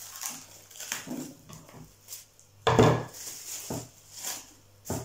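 Plastic cling film being torn and handled over a wooden chopping board: irregular crinkling and rustling, with louder crackles about two and a half seconds in and again near the end.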